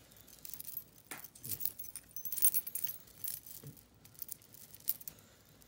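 Glass beads and small charms on a coiled memory wire bracelet clinking and jangling against each other as the bracelet is handled and slipped onto a wrist: scattered light clinks, busiest in the middle.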